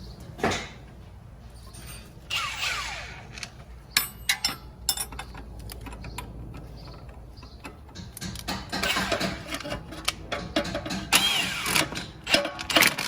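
Impact wrench running a nut down onto a sway bar end link in several short bursts, with sharp metallic clicks of tools in between.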